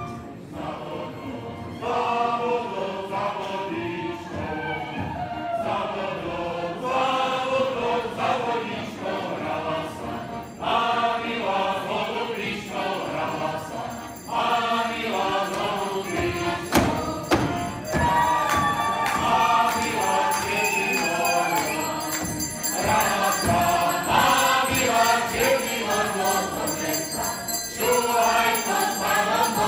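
A group of voices singing a Slovak folk wedding song in phrases with short breaks between them. A single sharp knock comes about halfway through.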